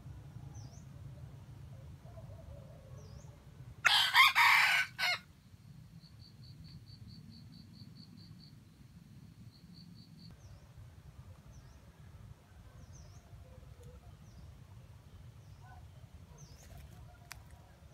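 A red junglefowl rooster crows once, loud and short, about four seconds in. A fast, high-pitched pulsing trill follows for about four seconds, with faint small bird chirps throughout.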